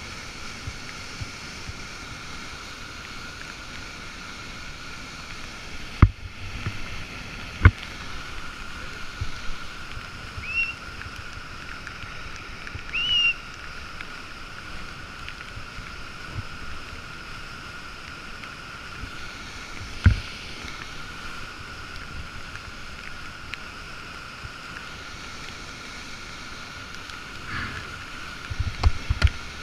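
Steady rush of a waterfall and whitewater, with a few sharp knocks about six seconds in, just before eight seconds and about twenty seconds in, and two brief high chirps between them.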